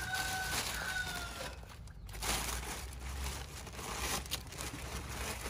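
Plastic bag rustling and crinkling as heads of cauliflower are handled and pulled out of it.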